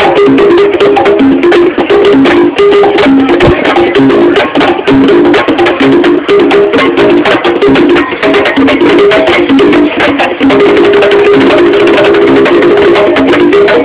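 Several conga drums played by hand together in a fast, dense rhythm.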